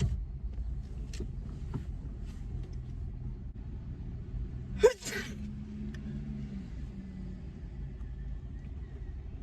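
A woman sneezes once about five seconds in: a short rising intake breaks into a sharp, noisy burst. A steady low rumble of the car's interior runs underneath.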